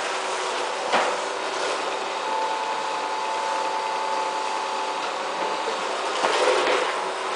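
Vacuum cleaner running steadily, with a sharp knock about a second in.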